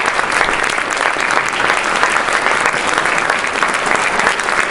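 Audience applauding, many hands clapping steadily and densely.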